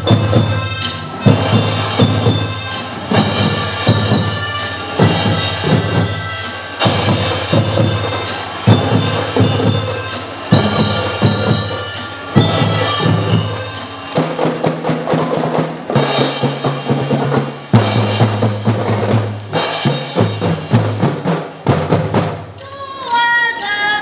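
Children's marching band playing: snare and bass drums striking sharp, rhythmic accents over sustained low notes, with ringing mallet-bell tones above.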